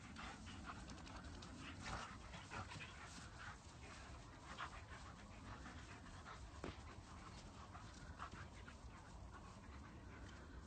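An Illyrian Shepherd and a husky panting faintly as they run and play, over a steady low rumble.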